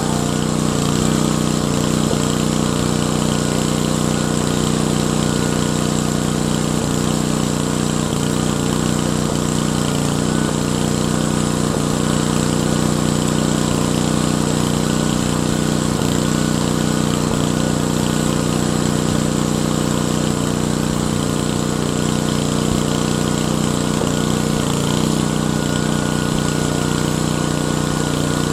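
Engine running at a constant speed, a steady even hum with no revving, from the equipment pulling the new sewer pipe through on a trenchless pipe-bursting job.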